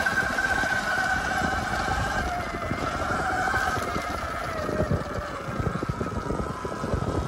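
Electric off-road motorbike under way, its electric motor giving a high whine that wavers in pitch with speed and drops a little about halfway, over wind rumble on the microphone.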